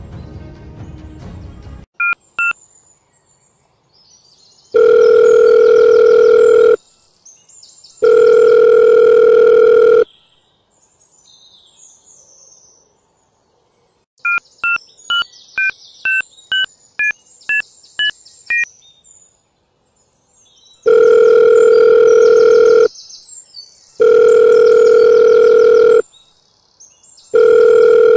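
Mobile phone call being placed: a run of about ten quick keypad beeps, then a ringing tone of long steady beeps, about 2 seconds each, that go unanswered. Two single beeps and two ring tones come before the keypad run. Music fades out during the first two seconds.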